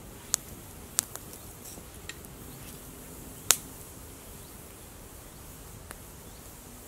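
Small wood fire of feather sticks and split kindling crackling, with a sharp pop every second or so, the loudest about three and a half seconds in.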